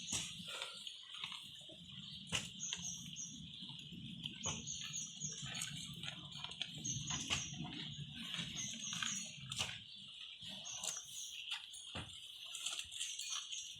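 Farmyard ambience: a steady high insect drone, with a short bird call of three or four quick notes repeating every couple of seconds, and scattered clicks and rustles.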